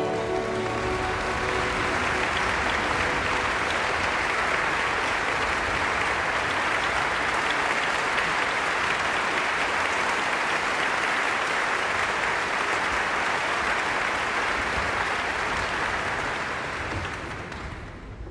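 Concert-hall audience applauding steadily, dying away near the end.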